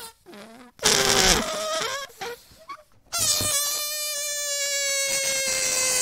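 Air let out of a rubber balloon through its stretched neck: a short noisy sputter about a second in, then from about three seconds a long steady squeal, its pitch sinking slightly.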